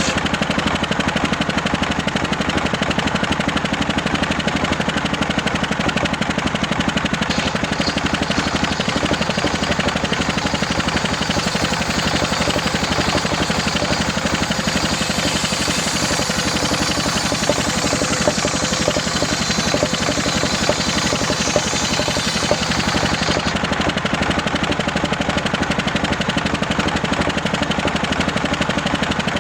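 Homemade circular saw rig running steadily, its engine drone and knock constant; for about twelve seconds in the middle a higher hiss joins it as the blade cuts through waru wood, then the saw runs free again.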